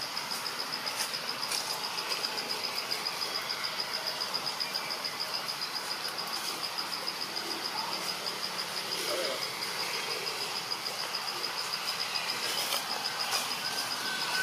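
An insect calling steadily in a high, even, rapidly pulsing chirp, about four pulses a second.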